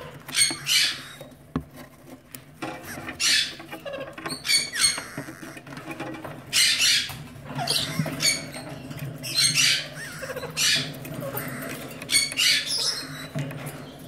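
Alexandrine parakeet giving a dozen or so short, raspy, high calls, often in close pairs, over a low steady hum.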